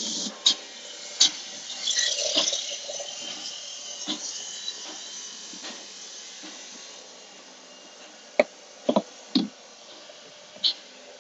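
Scattered sharp plastic clicks and knocks, with a short crackly rustle about two seconds in, as the plastic side trim panel of a truck dash is worked loose by hand. A few more sharp clicks come near the end.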